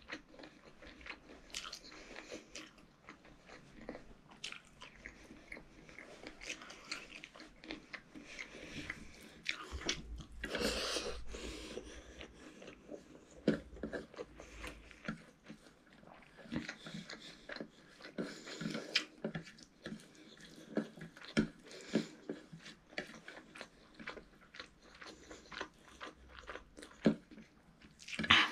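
A child chewing and smacking his lips while eating rice and chicken curry with his fingers: irregular wet mouth clicks and chewing, with a few sharper loud smacks.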